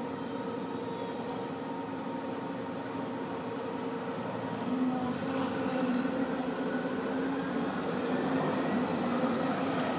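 A steady mechanical hum with a few held tones, growing a little louder about halfway through.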